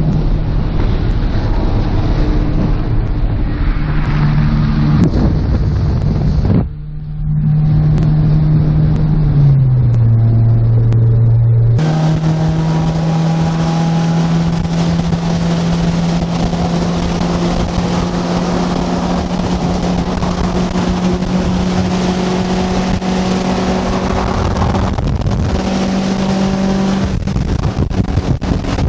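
Honda Integra's four-cylinder engine running steadily under way, with a single held pitch. The sound drops out briefly about seven seconds in, the pitch falls around ten seconds in, and it comes back to the steady note about two seconds later.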